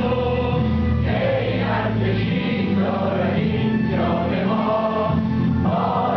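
An anthem sung by a choir over instrumental accompaniment, in long held phrases with a sustained low bass beneath.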